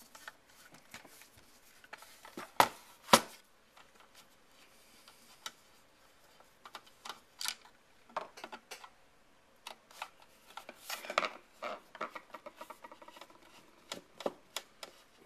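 Clicks, knocks and rattles of an old Apple floppy disk drive's casing being unscrewed and pried apart by hand, with two sharp knocks close together a few seconds in and a denser run of clicking and rattling near the middle.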